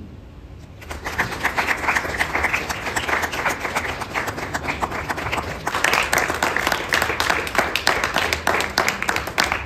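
Audience applauding: many hands clapping, starting about a second in.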